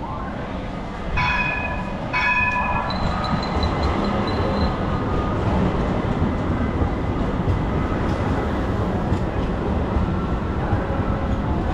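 Street tram sounding two short horn blasts about a second apart, then the steady rumble of the tram running past on its rails, with a thin high whine for a moment after the horn.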